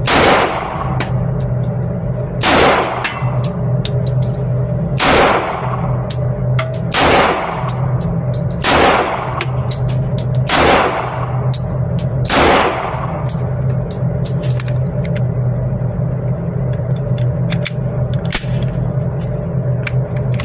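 Glock .40-calibre semi-automatic pistol fired slowly, seven shots about two seconds apart, each trailing an echo, then no more shots. A steady low hum runs underneath.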